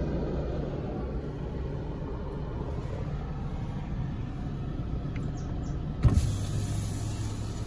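Car driving slowly, heard from inside the cabin as a steady low rumble. About six seconds in there is a knock, followed by a steady hum and hiss lasting about a second and a half.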